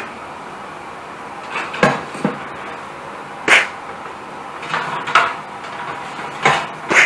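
Sharp knocks and clinks of a wooden pizza peel and a metal pizza pan against an oven's wire rack, several separate hits spread about a second apart from about two seconds in.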